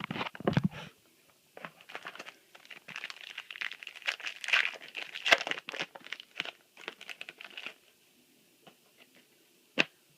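Foil trading-card booster pack crinkling as it is torn open and handled, with the cards inside rustling. The crinkling stops about two seconds before the end, and a single sharp tick follows.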